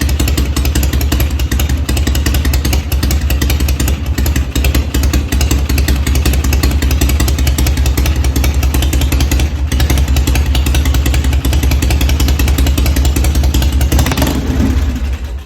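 Harley-Davidson V-twin running through Smicy silencers at a low, steady idle with a deep exhaust note and the loping three-beat rhythm. The sound cuts off suddenly at the very end.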